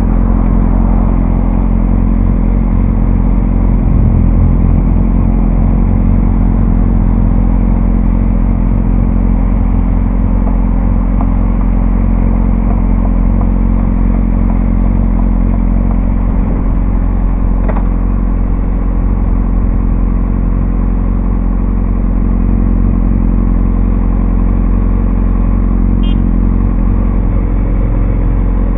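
Motorcycle engine idling steadily while the bike waits at a stop, picked up by a helmet-mounted camera.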